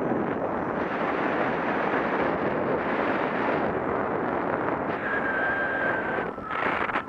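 Wind buffeting a Contour ROAM2 action camera's microphone: a steady rushing roar. A thin high tone sounds for about a second near the end.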